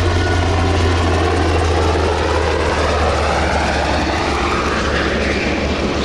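S-70C Seagull helicopter flying a display pass: a loud, steady drone of rotor and turbine, with a faint whine that rises in pitch through the middle.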